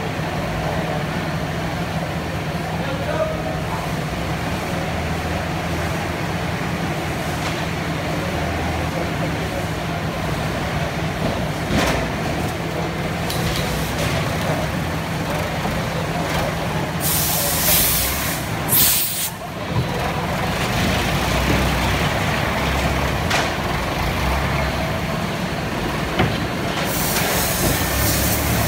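Short-cycle melamine laminating hot press running on a factory floor: a steady machine hum under constant plant noise, with a loud hiss about two-thirds of the way through and more hissing near the end.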